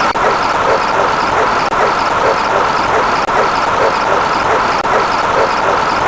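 A dense, loud din of many sound effects layered and playing at once, with a quick pattern repeating about three times a second over a steady noisy mass.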